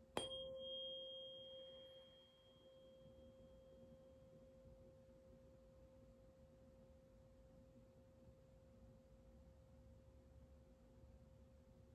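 A tuning fork struck once shortly after the start, with a light click, then ringing a single pure tone. The tone fades slowly, its higher overtone dying away within a few seconds, and it is still faintly ringing near the end.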